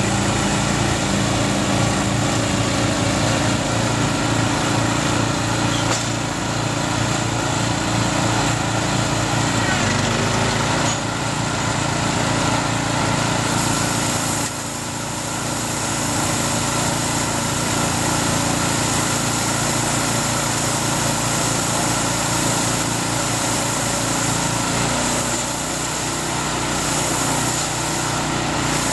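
Small engine of a Takakita SW1100W self-propelled crawler bale wrapper running steadily as the machine loads a round bale of forage rice and wraps it in stretch film, dipping briefly about halfway.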